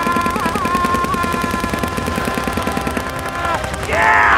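Airsoft gun firing on full auto, a fast even rattle of shots, over the high steady whine of an RC aircraft's electric motors. The whine stops about three and a half seconds in, and a short, louder rush of noise follows near the end.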